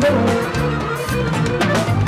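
Live band music: accordion, electric bass and drum kit playing a song together.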